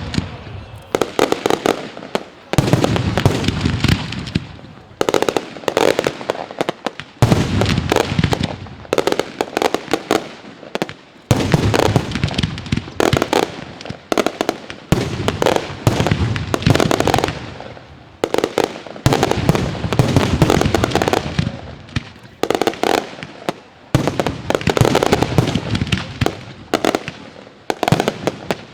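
Fireworks going off in volleys of rapid sharp bangs and crackling shots. A new volley starts abruptly every two to four seconds and fades away before the next.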